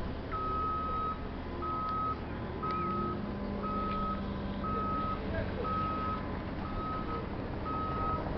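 A road roller's reversing alarm beeps steadily about once a second, eight times, over the low hum of the machine's engine running.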